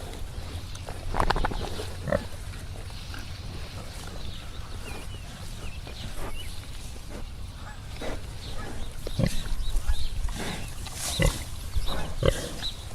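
Pigs grunting and squealing at irregular intervals, the calls louder and more frequent in the second half, over a steady low rumble.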